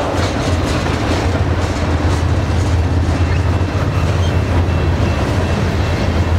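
Freight cars of a mixed freight train, centerbeam flatcars loaded with lumber and then tank cars, rolling past. Their steel wheels make a steady, loud rumble on the rails, with occasional clacks over the rail joints.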